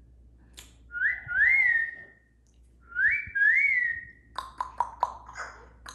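Yellow-naped Amazon parrot whistling: two pairs of rising notes, each pair ending on a held tone, followed near the end by a quick run of sharp clicks.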